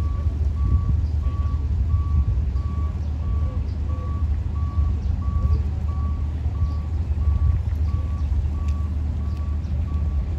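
A vehicle's reversing alarm beeping steadily, about two high beeps a second, over a steady low rumble.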